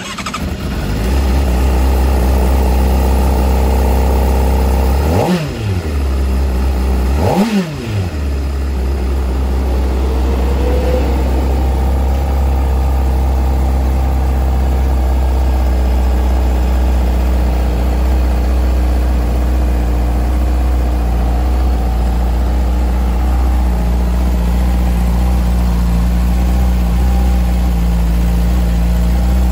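2021 Honda CBR600RR's inline-four engine starting and idling, blipped twice, about five and seven and a half seconds in, with quick rises and falls in revs, then settling back to a steady idle.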